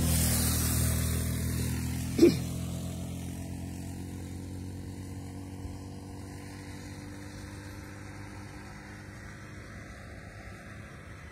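Small boat motor running steadily, then dying away over the first few seconds until only a faint hiss is left. About two seconds in there is a single short, sharp sound, the loudest moment.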